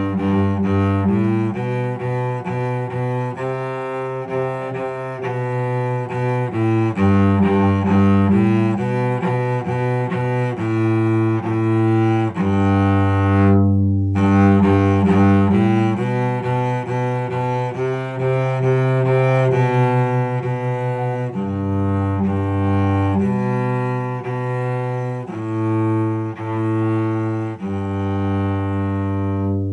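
Solo cello played with the bow: a simple beginner melody of separate bowed notes, mostly short, with some held longer, and the loudness rising and falling from phrase to phrase.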